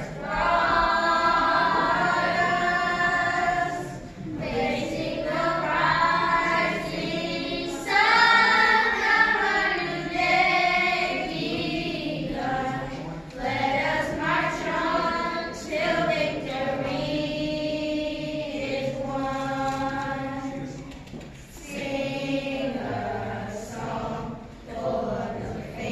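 Children's gospel choir singing together in phrases held for a few seconds each, with short breaks between them.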